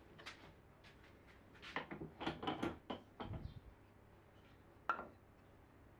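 Wooden frame parts handled and fitted together on a workbench: a cluster of light wooden knocks and clicks about two seconds in, a dull thump, then one sharp click near the five-second mark.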